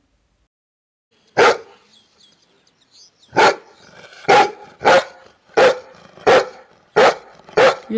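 A dog barking: one bark, then after a pause a run of seven barks at a steady pace of about three every two seconds.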